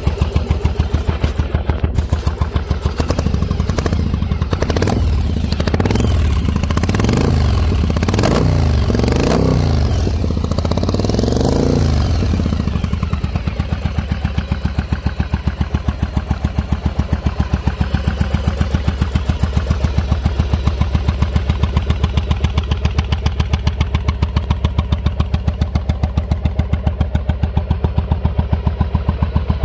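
1996 Yamaha Virago 750's air-cooled V-twin engine running shortly after a cold start. It is revved in a string of throttle blips that rise and fall from about three to twelve seconds in, then settles to a steady idle.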